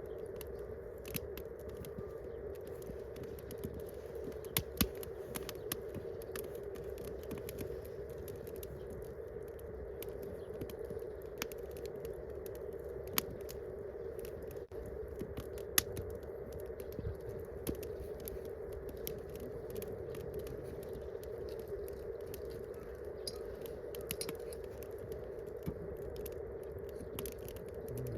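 Wood campfire crackling, with irregular sharp pops and snaps, a few louder than the rest, over a steady low hiss.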